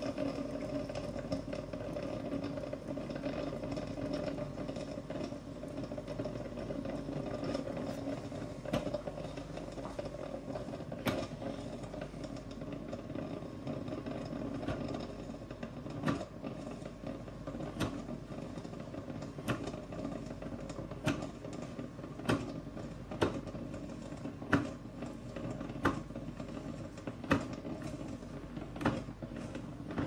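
Tower 10-cup drip coffee maker near the end of its brew cycle: a steady gurgle and hum from the heater pushing water up. From about ten seconds in it sputters with sharp pops, coming about once a second by the end, as the reservoir runs low.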